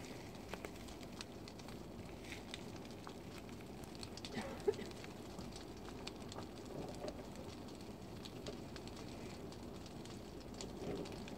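Faint, steady murmur of a distant crowd outdoors, with scattered light crackles and clicks and one sharper click about halfway through.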